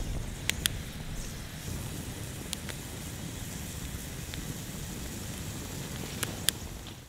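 Wood campfire burning, with a few sharp crackles and pops of the burning sticks, several of them in quick pairs, over a low steady rumble.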